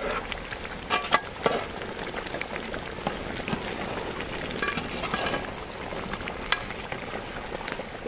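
Thick red fish-head curry simmering and bubbling hard in a pot, its gravy reduced to a thick, almost-done consistency. A metal spoon stirs through the heads, knocking against the pot a few times about a second in and once more later.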